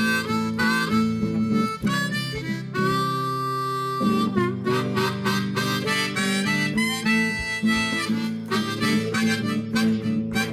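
Acoustic guitar strummed in a steady rhythm under a harmonica playing the melody, with one long held note about three seconds in: an instrumental break in a worship song.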